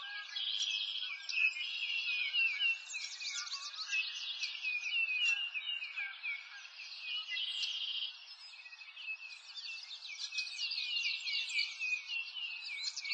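Dense chorus of many small birds chirping and twittering, quick high chirps overlapping without a break, over a soft hiss.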